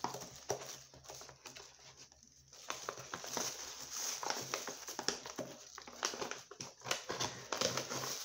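Rustling, crinkling and light irregular clicks and taps of beauty-product packaging being handled and taken out of a box.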